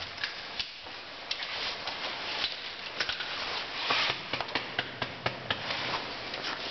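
Irregular metallic clicks and clinks of climbing hardware, karabiners and rope gear on caving harnesses, with scuffing as someone moves along a traverse line, over a steady hiss. The clicks come thickest in the second half.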